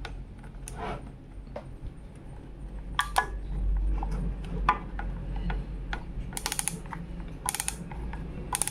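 Depth-adjustment knob on an INGCO PL7508 electric planer being turned by hand, giving irregular sharp clicks, some in quick little runs.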